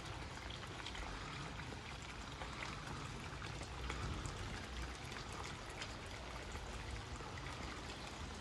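Heavy rain falling steadily, with many separate drop ticks close by and a low rumble underneath.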